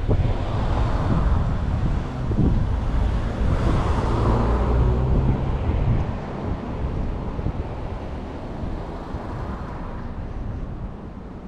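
A vehicle passing, swelling over the first few seconds and fading after about six seconds, with wind buffeting the microphone.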